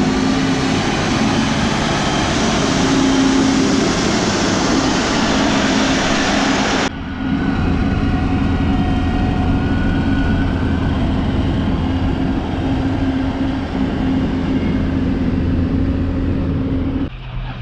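Vehicle engine running steadily with a low rumble. About seven seconds in, the loud hiss over it drops away abruptly, leaving the engine's hum.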